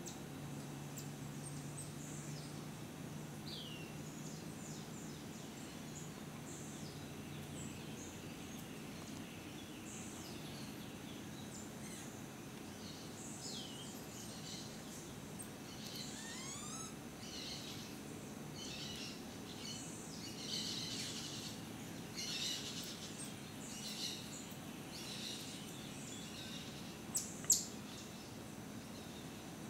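Many short, high-pitched chirping calls over a steady outdoor background, growing busier in the second half. Two sharp clicks near the end are the loudest sounds.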